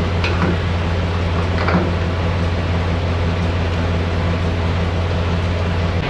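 Steady low hum with a rushing hiss as diesel is pumped through the nozzle into a semi truck's fuel tank, with a couple of faint clinks in the first two seconds.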